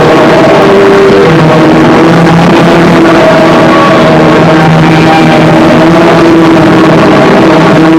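Harsh noise music: a constant, maxed-out wall of distorted noise with held tones that change pitch every second or so.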